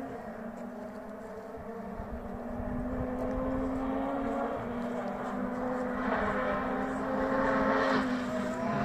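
Distant rally car engine approaching, a WRC hybrid test car, growing gradually louder. Its note climbs slowly and steps back down twice, like gear changes under acceleration.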